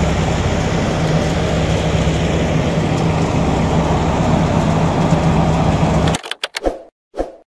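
An engine running steadily with a low drone, which cuts off abruptly about six seconds in. A few short clicks and a brief swish follow, then silence.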